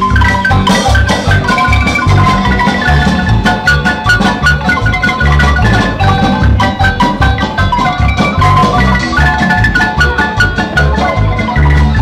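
Marimba music: quick runs of mallet notes over a steady, pounding low beat.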